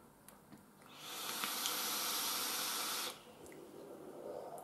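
Steady hiss of an e-cigarette drawn on for about two seconds, cutting off suddenly. A softer breathy hiss follows as the vapour cloud is exhaled.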